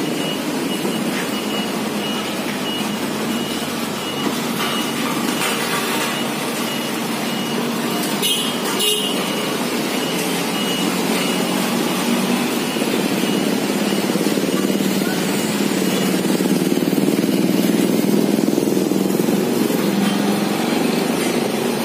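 Sakai SW652 tandem road roller running with a steady engine drone, which grows louder in the later seconds. A high reversing alarm beeps repeatedly through about the first nine seconds, and a short clatter comes about eight seconds in.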